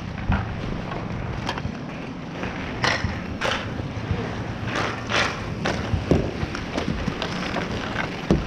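Inline skate wheels rolling on asphalt, a steady low rumble broken by many short sharp scrapes and clacks from skate strides and hockey sticks.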